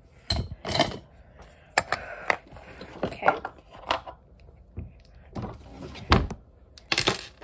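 Makeup cases and tools being handled and put down: a series of irregular clicks and knocks, the loudest about six seconds in.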